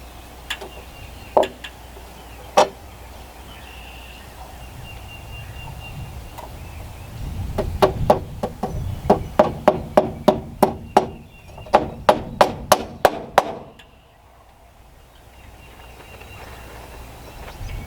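Hammer blows: a few single strikes, then a quick, even run of about three blows a second for several seconds, with a short break partway through, as of nails being driven into the porch's wood framing.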